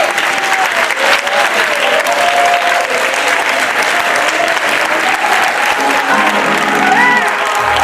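Audience applauding steadily, with music playing over the clapping and a bass line coming in near the end.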